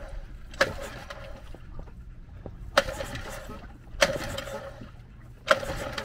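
Honda 20 hp four-stroke outboard being pull-started by hand, cold and on choke. There are four pulls on the recoil starter, each a sharp snap followed by a brief rattle as the engine turns over without catching. The owner judges the pulls not strong enough to start it.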